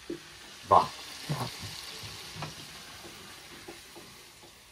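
Chicken pieces frying in oil in a metal karahi, sizzling, while a wooden spatula stirs them and knocks against the pan. The loudest knock comes just under a second in, and the sizzle fades gradually.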